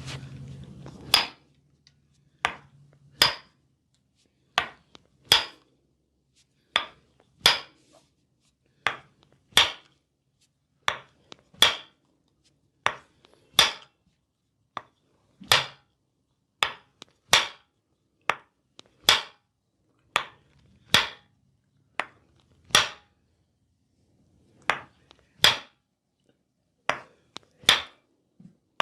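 A series of sharp slapping strikes of a percussive massage, about one a second and often in pairs, with silence between them.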